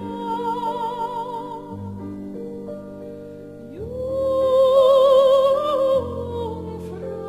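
Background music: a slow melody of long held notes with a wavering vibrato over sustained low notes. About four seconds in, a note slides up and is held, the loudest part.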